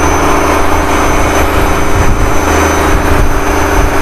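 A fishing boat's engine running steadily with the boat under way, a constant low hum under the rush of water and wind.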